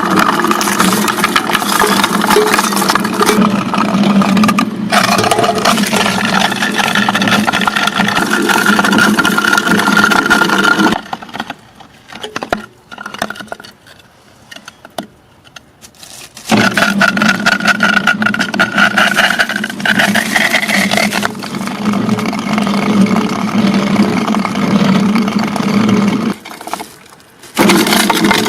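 Motor-driven crushing machine running and grinding ice cubes, a loud steady hum with a dense rattling crunch over it. The sound drops away for about five seconds some eleven seconds in, and again briefly near the end.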